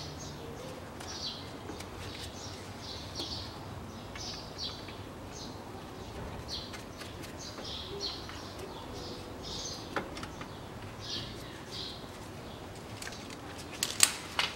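A small bird chirping over and over, short high chirps every half second or so, over a low background. A few sharp clicks cut in, one about two-thirds of the way through and a louder cluster near the end.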